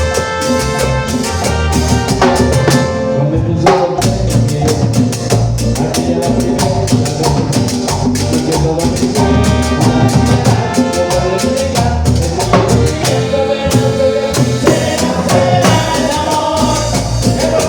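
Latin dance-band music: drum kit and hand percussion keeping a steady upbeat rhythm under melodic instruments, with little or no singing.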